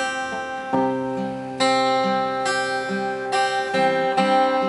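Acoustic guitar playing an instrumental interlude, a new chord struck roughly every second and left to ring.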